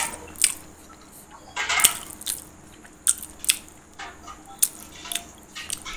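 Mouth noises of a person chewing food close to the microphone: scattered short wet clicks and lip smacks, with a louder cluster about two seconds in.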